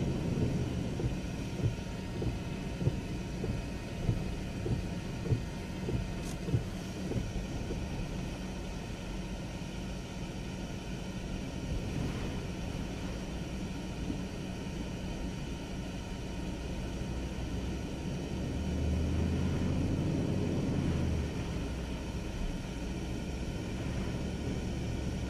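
Hurricane-force wind and rain buffeting a slowly moving car: a steady low rumble that swells with a gust near the end, with scattered knocks in the first several seconds.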